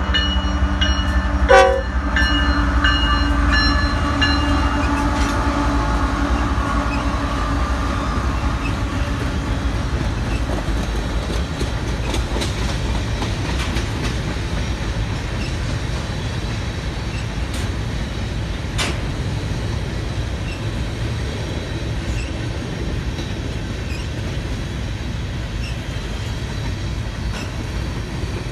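BNSF freight locomotive's horn gives a short blast about a second and a half in, its tones trailing off over the next few seconds as the locomotive passes. After that a long grain train of covered hopper cars rolls by with a steady low rumble of wheels on rails.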